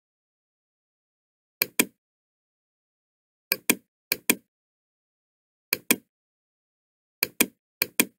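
Computer mouse button clicked six times at irregular intervals, each click a quick press-and-release pair of sharp ticks, with silence between.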